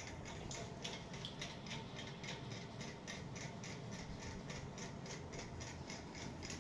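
Scissors snipping steadily through a Shih Tzu's long fur as it is trimmed, in a quick even rhythm of about four snips a second.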